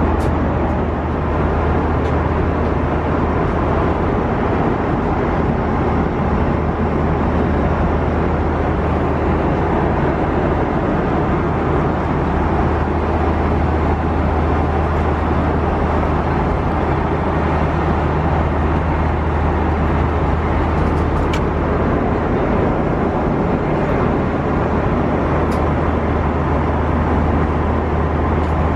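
Steady cabin roar of an Airbus A330-200 in flight: engine and airflow noise with a strong low hum, unchanging throughout. A couple of faint clicks are heard late on.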